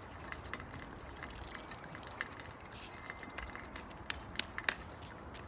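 Quiet outdoor background with scattered faint clicks and ticks, the sharpest few coming about four and a half seconds in.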